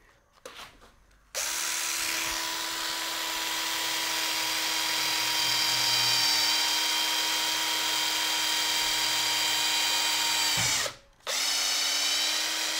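Cordless drill boring a 4mm hole through a speargun handle. It starts about a second and a half in and runs at a steady pitch for about nine seconds, stops briefly near the end, then starts again.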